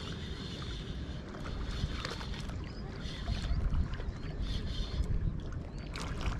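A spinning reel being cranked in short spells while a lure is retrieved, its light high whir coming and going, with a few small clicks. Under it is a steady low rumble of wind on the microphone and lapping water.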